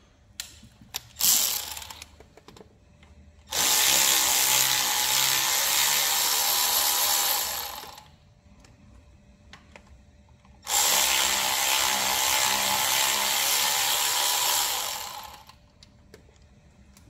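Handheld power driver with an Allen (hex) bit running in two spells of about four seconds each, spinning out the bolts of the timing chain guides. A few light metal clicks of tools come before the first run.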